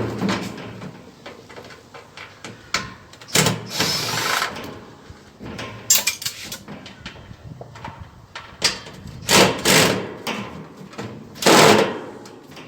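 Cordless drill backing screws out of a microwave's sheet-metal casing in several short bursts. Clicks and knocks of handling fall between the bursts.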